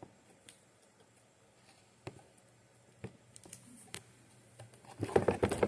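Scattered light clicks and taps of iMac parts being handled and laid down during reassembly, with a quicker, louder flurry of clicks near the end.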